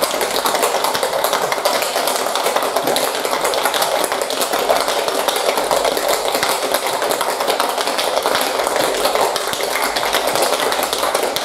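Ice cubes rattling hard and fast inside a metal cocktail shaker being shaken vigorously, a dense, steady clatter.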